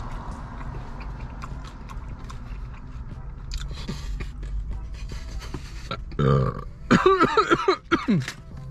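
A man burps loudly near the end, a pulsing belch of about a second and a half whose pitch wavers and falls. Before it, soft clicks of eating sound over a low steady hum, and a short hum of a voice comes about six seconds in.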